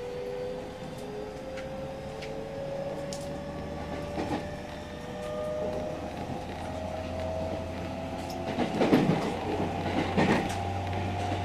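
JR Central 313 series 1100 subseries electric train running, heard inside the car. The traction motor whine rises slowly in pitch as the train gains speed. The wheels clatter over rail joints a few times, loudest near the end.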